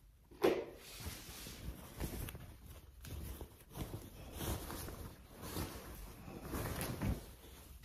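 Handling noise from a quilted cotton bag being worked by hand: irregular rustling of the fabric, with a knock about half a second in.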